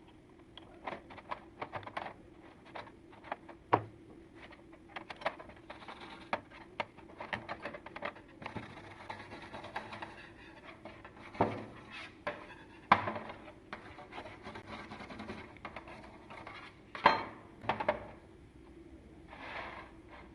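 Hand work on a small rusted metal tool: irregular scraping and rubbing with many sharp metal clicks and knocks. A few single knocks stand out much louder than the rest.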